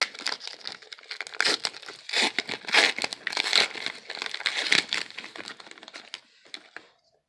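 2019 Donruss baseball card pack wrapper crinkling and tearing as it is ripped open by hand: a dense run of crackles and snaps that thins out near the end.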